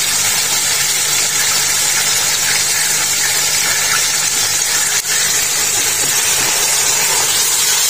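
Beef mince, sliced onions and ginger-garlic paste sizzling in hot oil in a pot, a steady hiss with a low steady hum beneath it.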